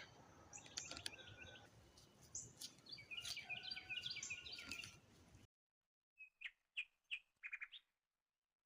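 Wild birds chirping quietly over an outdoor background hiss, with a quick run of chirps about three to five seconds in. The background cuts off suddenly about five and a half seconds in, leaving a few short isolated chirps in silence.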